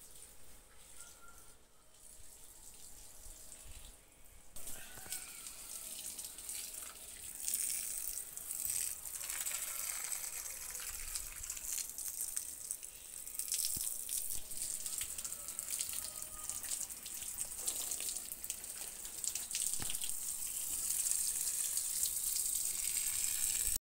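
Water from a garden hose splashing onto plants and soil, a steady hiss with crackly spatter that grows louder after about four seconds.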